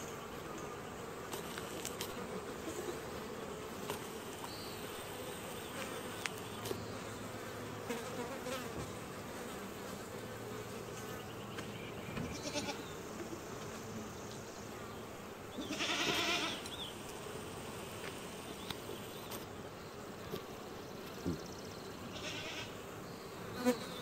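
Honeybees buzzing as they fly in and out of a hive entrance: a steady hum, with one louder, pitched passage about two-thirds of the way through.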